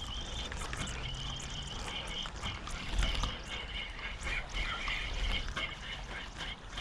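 Waterfowl calling over open water, a run of repeated high calls.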